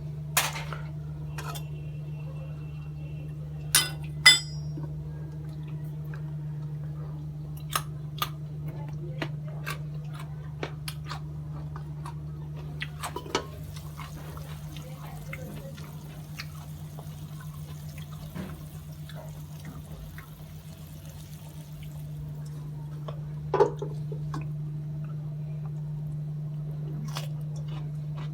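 Scattered clinks, taps and knocks of kitchen utensils and dishes over a steady low hum. The loudest few ring briefly, near the start, about four seconds in and near the end.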